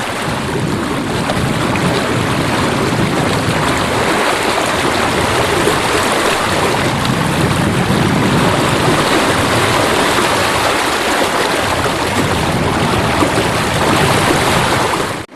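Steady rush of water along the hulls of a catamaran under way at sea.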